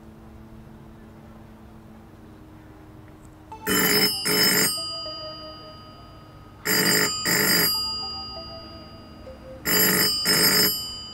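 Telephone ringing with a double ring (two short rings close together), repeated three times about three seconds apart, beginning a few seconds in.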